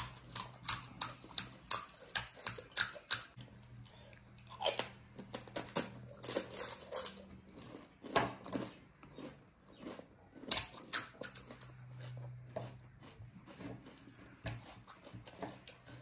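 Close-miked chewing of crisp panipuri shells: quick runs of sharp crunches, with a faint steady low hum underneath.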